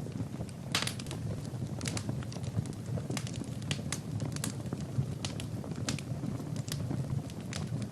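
Fire burning in a fireplace: irregular crackles and sharp pops, several a second, over a steady low rumble of the flames, with a louder pop just under a second in.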